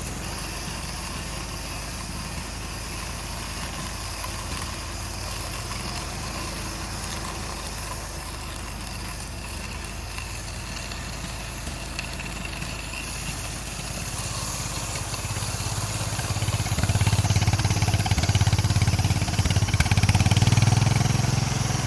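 1926 Fordson snow tractor's four-cylinder engine running steadily with a low rumble, growing louder about two-thirds of the way through.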